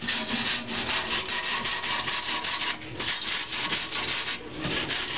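A hand tool scraping rust off a car's steel floor pan in rapid back-and-forth strokes, with a couple of short breaks.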